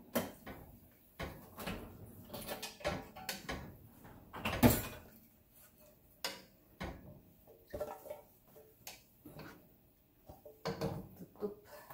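A wooden spoon stirring fish and broth in a cooking pot, knocking against the pot's sides with irregular clatter and one louder knock a little before halfway.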